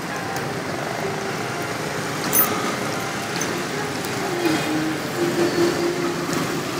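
Street ambience of steady traffic noise, with engines and a general hiss, and one short sharp click about two and a half seconds in.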